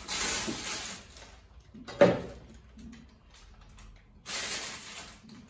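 Disposable plastic piping bag rustling as it is handled and filled with whipped cream from a spatula. There is a single sharp knock about two seconds in.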